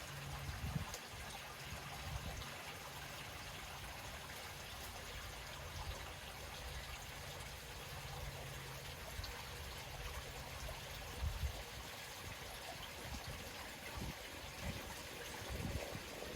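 Lake water lapping and trickling gently at the edge, as a soft steady wash, with low rumbles and a faint low hum that comes and goes underneath.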